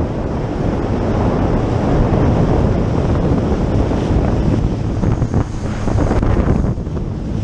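Sea-Doo jetski cruising slowly over choppy sea: steady wind buffeting the microphone and water splashing along the hull, with the engine running underneath.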